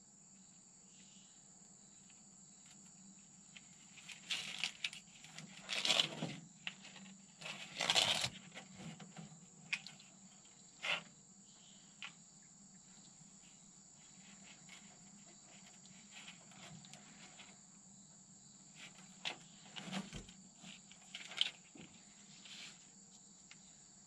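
Hands handling a truck's wiring harness: scattered rustles and clicks of wires and loom being pulled and sorted, loudest about six and eight seconds in. Under it, a steady high drone of insects.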